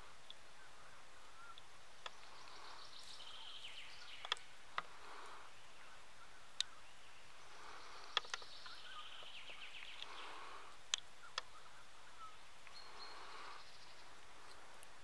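Woodland birdsong: one bird repeats a short, fast, falling trill about every five seconds over softer warbling from others. Several sharp clicks are scattered through.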